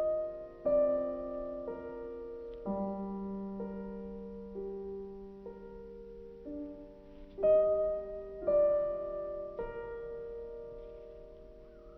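Slow background piano music: single notes and chords struck about once a second and left to ring.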